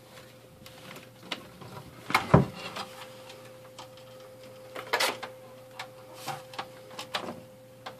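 Scattered clicks and knocks of the set-top box and its cables being handled as the box is taken off its mount, the loudest knock about two seconds in, over a faint steady hum.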